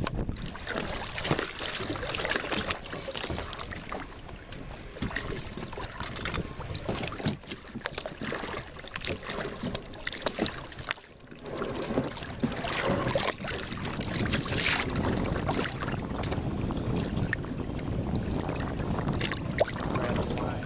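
Water splashing and sloshing around a small boat, with wind on the microphone; uneven, with frequent short splashes and a brief lull about eleven seconds in.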